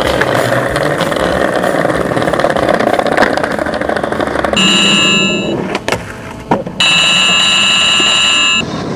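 Skateboard wheels rolling over rough asphalt, a steady grinding noise. Past the middle, a high steady electronic beep-like tone sounds twice, about a second and then about two seconds long, with a few sharp clicks between.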